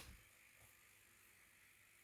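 Near silence: faint room hiss, opening on the fading tail of a sharp click, with one faint tick about half a second in.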